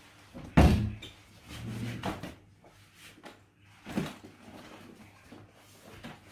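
Wooden wardrobe doors being opened and handled, with a loud knock just over half a second in, a duller thudding about a second later, and a smaller knock about four seconds in.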